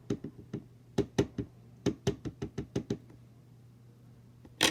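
Light, quick taps of an ink pad being dabbed against a rubber cling stamp to re-ink it, in runs of about four or five a second over the first three seconds. Near the end comes one louder, sharper snap.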